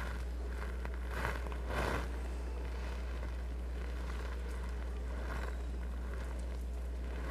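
Steady low hum, with two short soft noises about one and two seconds in.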